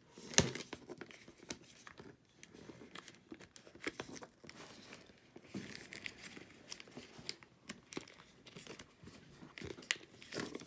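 Plastic shrink wrap being torn and peeled off a card box, crinkling in many short sharp crackles. A single sharp knock about half a second in is the loudest sound.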